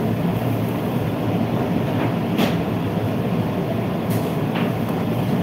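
A commercial kitchen's extractor hood fan running with a steady drone, with a few short clicks over it.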